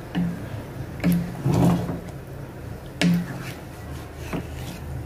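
A cooking utensil stirring butter chicken gravy in a pan: a few short scrapes and knocks against the pan, irregularly spaced about a second apart.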